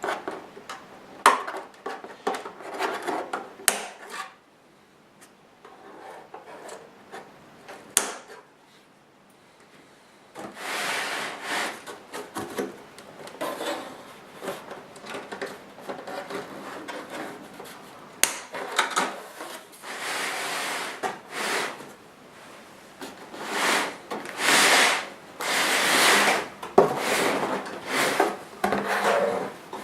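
A few sharp clicks as zip ties holding an RC monster truck are snipped, then long stretches of cardboard and plastic packaging rubbing and scraping as the truck is worked free of its box.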